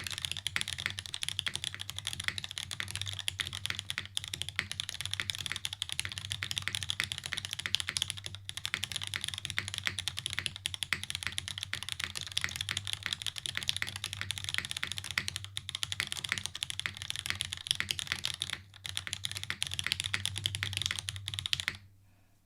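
Fast, continuous typing on a Hiney TKL One PC mechanical keyboard. It has diamond-polished MX Black linear switches lubed with Tribosys 3203, a top-mounted aluminium plate with no dampening, and GMK keycaps, giving a dense stream of keystroke clacks. The typing stops abruptly near the end.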